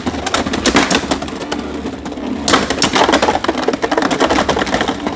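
Beyblade X spinning tops clashing in a plastic stadium: a rapid, continuous clatter of clicks and knocks, with a burst of harder hits about two and a half seconds in.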